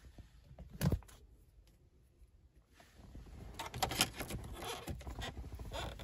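Fingers handling the plastic air-vent panel trim on a Toyota Prius dashboard: one sharp click about a second in, then from about halfway through a couple of seconds of scratchy rubbing and small clicks.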